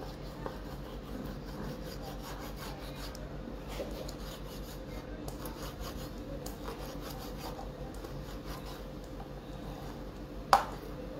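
A kitchen knife slicing raw liver on a plastic cutting board: a run of short, faint scraping strokes of the blade through the meat and against the board. Near the end there is a single sharp knock.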